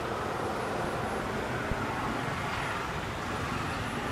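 Steady road traffic noise: a continuous rumble and hiss with no distinct events.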